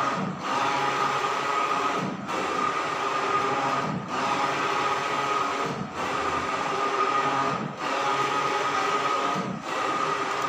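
Large-format digital printer running, a steady mechanical whir with a high tone that dips briefly about every two seconds, as from the print carriage sweeping back and forth.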